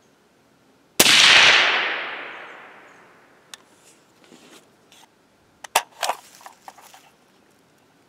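A single shot from a suppressed .300 Blackout AR-style rifle firing a supersonic load, about a second in, its report echoing and dying away over about two seconds. A few light clicks and clinks follow about five to six seconds in.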